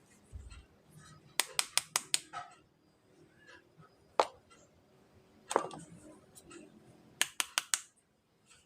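Handling of toy figures and their packaging: short runs of sharp clicks and taps, a quick burst of about five, two single clicks, then another quick run of four.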